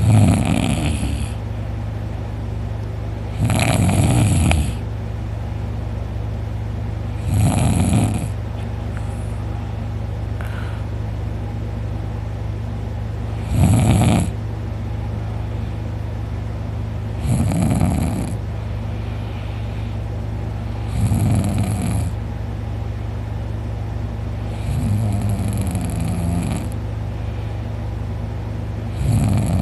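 A man snoring loudly in deep sleep, about a second per snore and one every four seconds or so, over a steady low hum.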